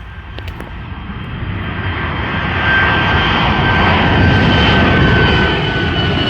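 Airliner climbing out just after takeoff and passing low overhead. Its engine roar builds steadily louder over the first few seconds, and a high whine slowly drops in pitch as it goes by.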